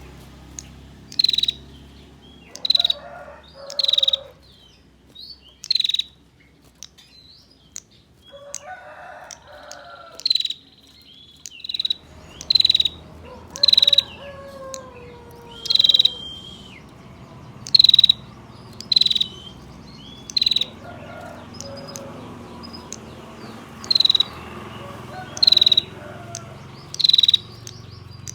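Female prenjak (prinia) giving her sharp, high 'tir' calls, the call a female uses to draw a male. Short, loud notes repeat every second or two, with a lull of a few seconds around a third of the way in.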